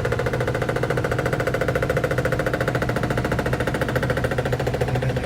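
Whirlpool top-load washing machine running with a rapid, steady knocking rattle over its motor hum: something is rubbing, the basket touching the cabinet because the machine is not level on the floor.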